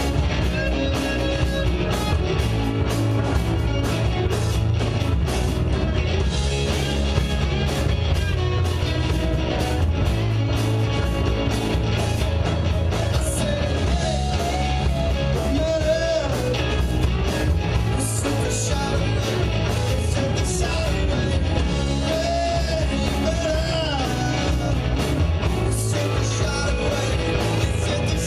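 A live rock band playing loudly, with electric guitar and a drum kit keeping a steady beat, and a voice singing a wavering melody line over it in places.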